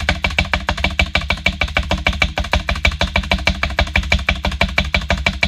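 Music with a fast, even percussive beat of about eight sharp clicks a second over a steady low bass.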